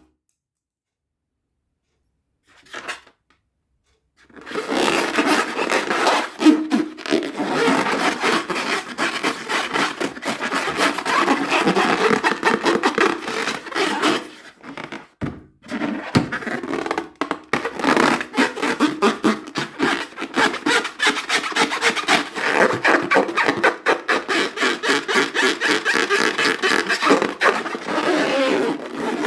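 Rubber balloons being rubbed and squeezed by hand: a dense, crackly rubbing that starts a few seconds in, stops briefly about halfway, then goes on again.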